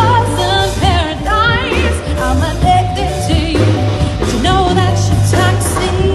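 A song: a singer's voice with wide vibrato over a pulsing bass line and steady backing music.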